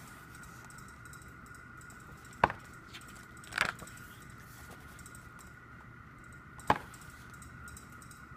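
Pages of a glossy album photobook being turned by hand: three short papery snaps a few seconds apart, the middle one a longer rustle. A faint steady high whine runs underneath.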